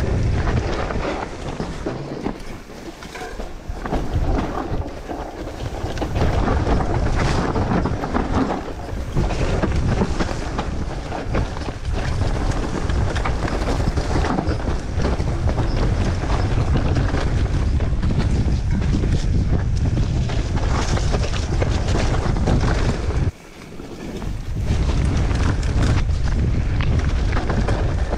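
Mountain bike riding a dirt singletrack: wind rushing over the camera's microphone, with tyres on the dirt and the bike rattling over bumps. The noise drops suddenly about 23 seconds in, then builds back up.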